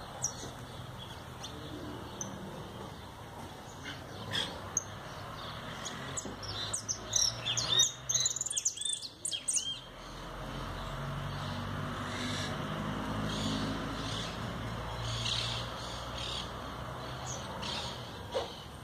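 A caged jilguero finch singing: scattered chirps, then a fast, loud run of song about six seconds in lasting some four seconds, then more spaced chirps. A low steady hum sits under the second half.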